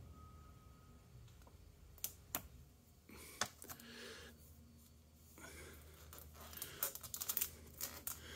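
Faint crackling and ticking of clear packing tape and a paper sticker being pressed and smoothed by fingers. A few sharp clicks come about two seconds in, and denser crackling fills the second half.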